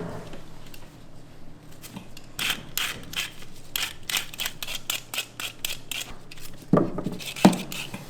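Knife peeling deodeok roots: a fast run of short scraping strokes, with two louder knocks near the end.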